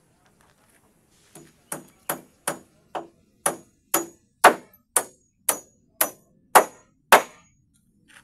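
Hammer driving a nail into timber: a steady run of about thirteen sharp strikes, roughly two a second, each with a short metallic ping of hammer on nail.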